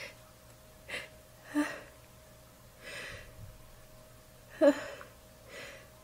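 A woman sneezing wet, snotty sneezes into a tissue: two sharp sneezes, one about a second and a half in and a louder one about three seconds later, with gasping, breathy in-breaths before and between them.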